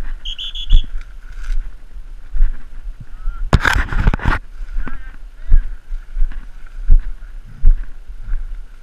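Crunching and rustling of movement through dry corn stubble, with low thumps about once a second and a loud rustle about halfway through. A brief high chirping call sounds near the start.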